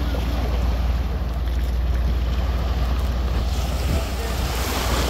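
Small waves washing and lapping onto a sandy shore, a steady wash with wind rumbling on the microphone.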